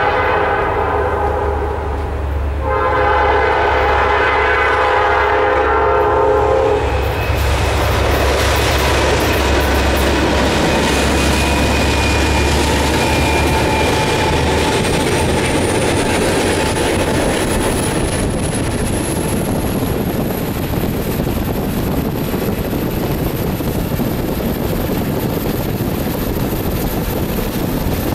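Norfolk Southern freight train led by a GE Dash 8 and an EMD SD70 diesel locomotive passing: a multi-chime horn sounds briefly at the start and again for several seconds, the diesels' low rumble goes by, and then the cars roll past with a steady rushing and clatter of wheels on rail. A thin high whine rises slowly through the second half.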